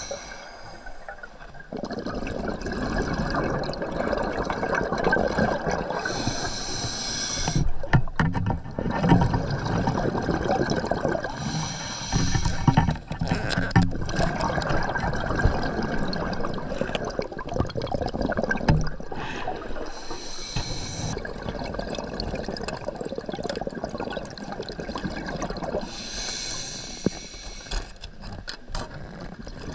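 A scuba diver breathing through a regulator underwater: a short hiss about every six or seven seconds, with rushing, bubbling sound between. A few sharp knocks come through in the middle.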